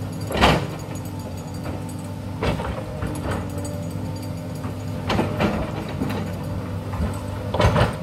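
Sany crawler excavator's diesel engine running steadily while its bucket scrapes and knocks into earth and stones about four times, the loudest about half a second in.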